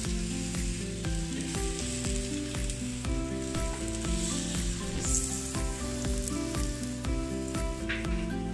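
Aubergine slices sizzling as they fry in olive oil in a frying pan while more slices are laid in. Background music with a stepping melody plays under the sizzle.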